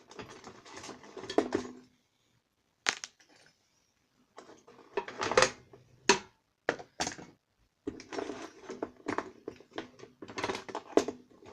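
Metal hand tools clinking and clattering against each other as they are rummaged through and lifted out of an old toolbox. The clacks come at irregular intervals, with a couple of short pauses.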